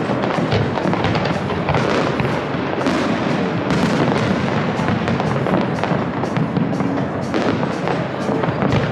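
Aerial firework shells bursting in quick succession: a dense, continuous crackling and banging with no break, many sharp cracks overlapping.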